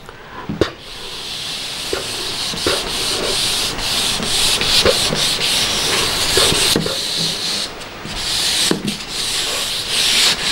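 Whiteboard duster rubbing marker writing off a whiteboard in repeated back-and-forth strokes, a steady dry scrubbing hiss with brief pauses between strokes.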